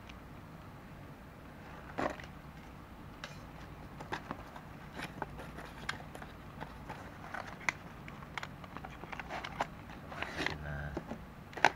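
Scattered small clicks and taps of fishing-reel parts and tools being handled on a tabletop, with a sharper click about two seconds in and another near the end. Plastic packaging rustles briefly near the end.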